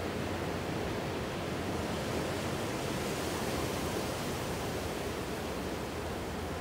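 Ocean surf washing against the shore, a steady rushing wash that swells a little midway and eases off again.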